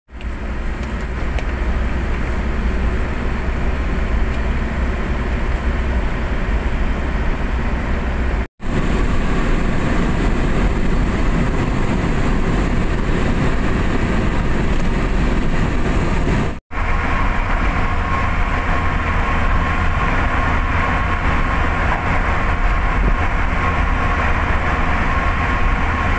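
Steady road and engine noise inside a car cruising on a highway, a low rumble with tyre hiss. It drops out for an instant twice where clips are joined.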